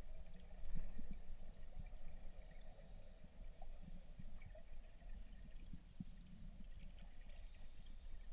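Muffled underwater ambience through a camera's waterproof housing: a low steady rumble with faint scattered clicks.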